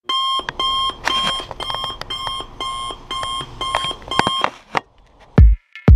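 Electronic alarm clock beeping in short pitched pulses, about two a second. The beeping cuts off about four and a half seconds in, followed by a single knock. Near the end a music track starts with a heavy kick-drum beat.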